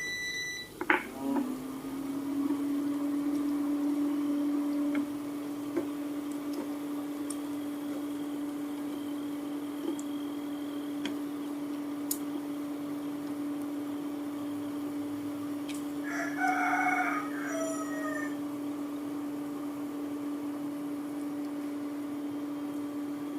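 Electronic cooktop humming with a steady low tone after its heat has been turned down. A rooster crows briefly about two-thirds of the way in.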